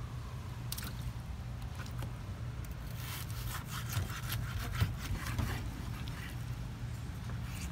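Kitchen knife slicing raw wild pig meat on a wooden chopping board: a run of short cutting and scraping strokes, thickest in the middle, with one sharper knock of the blade on the board. A steady low hum runs underneath.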